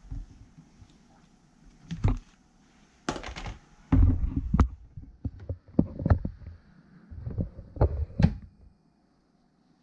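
Cutting board being handled and laid on a kitchen countertop: a string of knocks and thuds, starting about two seconds in and stopping a second or so before the end.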